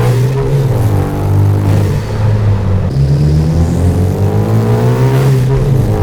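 Turbocharged Hyundai Genesis Coupe with a free-flow aftermarket exhaust accelerating through the gears. The engine note rises, drops sharply at a gear change about two seconds in, then climbs again with a faint high whistle over it, and drops once more at a second shift near the end.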